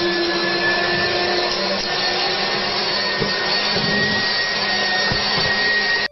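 A steady electric motor running continuously, a rushing noise with a thin high whine over it.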